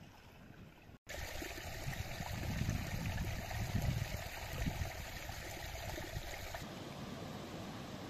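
Running water, a stream-like rush and trickle that starts abruptly about a second in and eases near the end.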